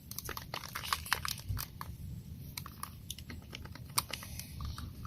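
Handling noise: rapid, irregular small clicks and crinkles as a container is opened.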